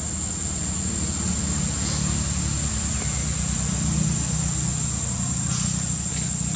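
A steady low mechanical rumble, like an engine idling, under a constant high-pitched insect drone.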